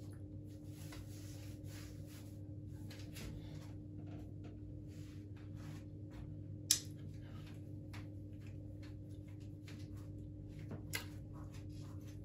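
Quiet small-room tone with a steady low hum, faint rustling, and a single sharp click about seven seconds in.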